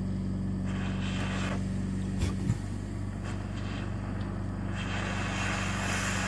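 Invacare Perfecto oxygen concentrator's twin-piston compressor running with a steady hum. Two stretches of hissing come about a second in and again near the end, with a couple of low knocks a little after two seconds.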